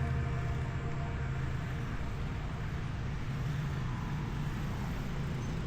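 Steady low rumbling background noise, the kind of sound made by road traffic, with the tail of a music track fading out at the very start.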